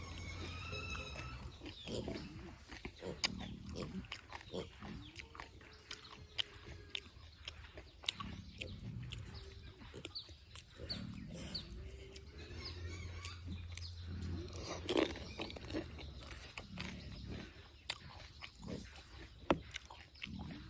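Close-up eating of pani puri: crisp puri shells crunching and being chewed, with many sharp mouth clicks and wet chewing noises.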